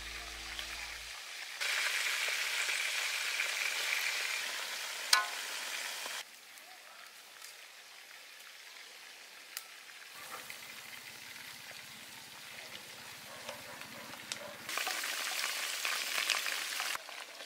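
Chicken pieces frying in hot oil in a wok, a steady sizzle that is loud for a few seconds, drops fainter, then comes up loud again near the end. A single sharp knock about five seconds in.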